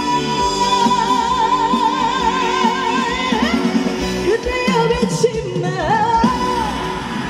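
Female singer holding a long note with wide vibrato over a band backing track, then a sung run of turns, closing the last line of the song.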